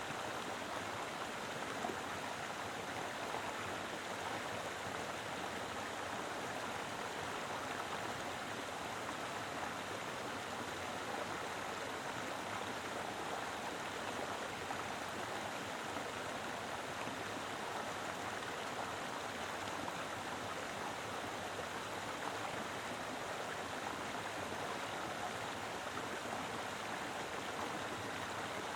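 Mountain river flowing, a steady, even rush of water over rocks.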